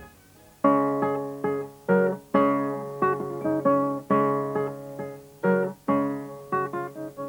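Instrumental background music: a run of chords that are each struck and then ring and fade. It starts about half a second in, after a brief pause.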